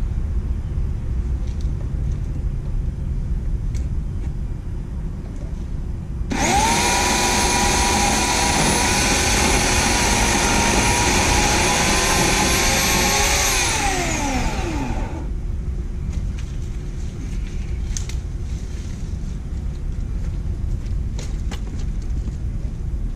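Homelite 16-inch corded electric chainsaw's motor starting abruptly and running at a steady high whine for about seven seconds, then winding down in a falling pitch as it is shut off.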